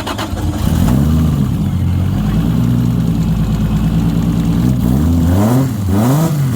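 A car engine finishes cranking, catches within the first second and settles into a steady idle. From about five seconds in it is blipped several times, its pitch rising and falling quickly. It is being run with a refitted fuel injector held into its rail by hand.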